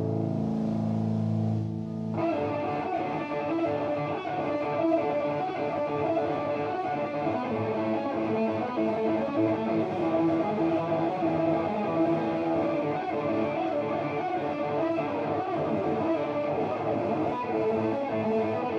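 Live band with distorted electric guitar and a drum kit: a held guitar chord rings for about two seconds, then the drums come in and the two play a loud, distorted riff together.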